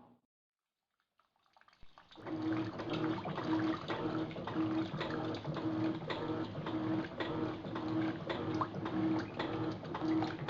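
Electrolux top-loading washing machine agitating a load in rinse water: the motor hums in regular pulses about one and a half times a second as the agitator swings back and forth, with water sloshing and frequent small clicks. The sound starts after about two seconds of silence.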